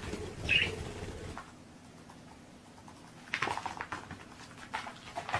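Light tapping and scrabbling of a cat's paws on a wooden parquet floor as it chases a laser dot, busiest a little after three seconds in. A short high chirp comes about half a second in.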